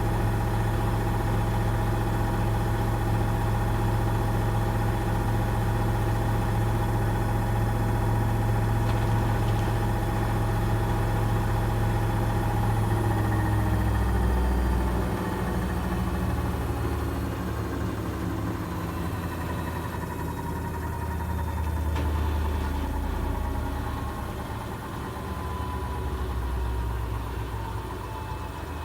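Gorenje washing machine's drum spinning fast in its final spin with a steady low hum, then slowing about halfway through, its pitch sliding down as the spin winds down.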